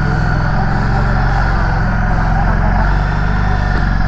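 Harley-Davidson Street 750's V-twin engine running steadily as the motorcycle pulls away slowly.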